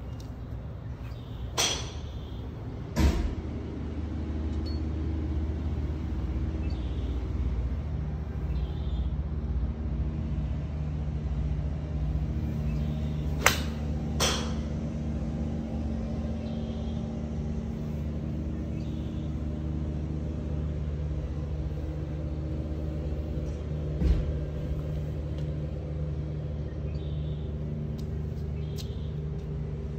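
Sharp cracks of golf clubs striking balls: a pair near the start, one about halfway through as the golfer's swing connects, another right after it, and one late. Under them runs a steady low engine-like drone with a few held tones, which grows louder a few seconds in.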